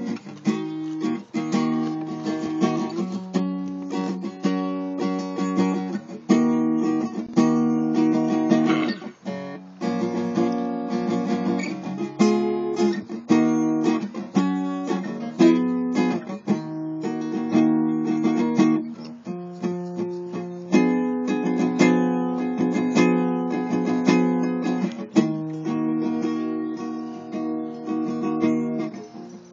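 An acoustic guitar played solo, with chords strummed and picked in a steady run and changing every second or two.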